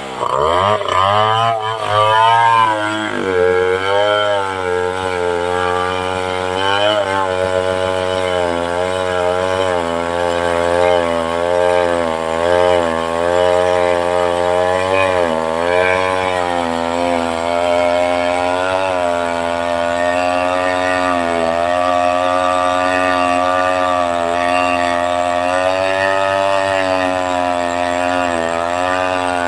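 Two-stroke chainsaw running at high revs, its pitch sagging and picking up again every few seconds as the chain is loaded in the cut, then holding steadier near the end.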